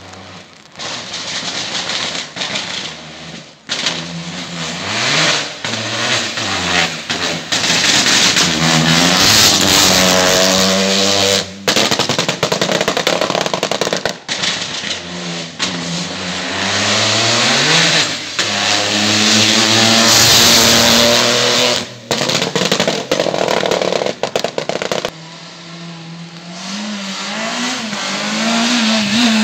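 Race cars accelerating hard past on a wet road, engines revving up and dropping back at each gear change. Several separate passes follow one another, each cut off abruptly.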